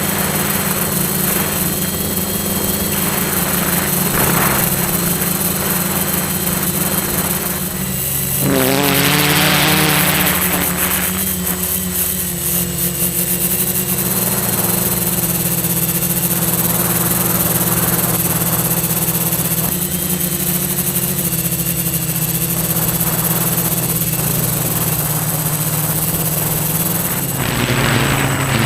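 Electric motors and propellers of a 450 mm quadcopter buzzing steadily, heard from a GoPro mounted on the craft, their pitch shifting with the throttle. There are two louder surges with rising pitch, one about a third of the way in and one near the end.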